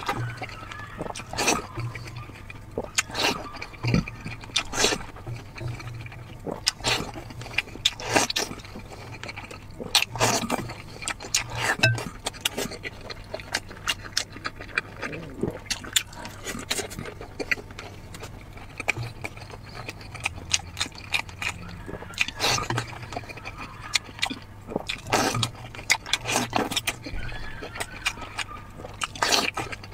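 Close-miked eating: a person chewing and smacking with the mouth open, taking in boiled dumplings from broth and slices of braised pork belly, with sharp irregular clicks of chopsticks and mouth noises throughout.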